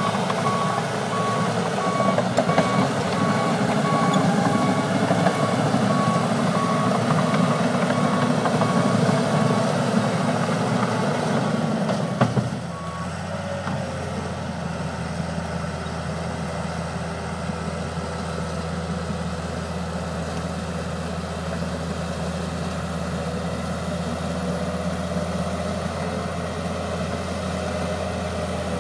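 John Deere 700H crawler dozer's diesel engine working hard with its backup alarm beeping steadily while reversing. About twelve seconds in there is a short knock, the beeping stops, and the engine settles to a steady idle.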